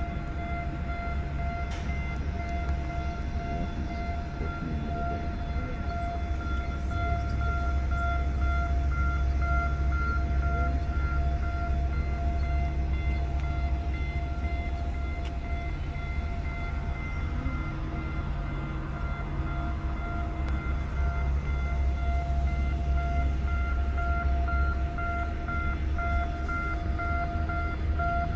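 Steady low drone of large ship and tug machinery in a canal lock, with a constant whine and its overtones held above it, pulsing slightly.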